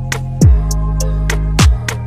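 Background music with a steady beat: a deep thump about once a second over sustained low notes, with light high ticks between.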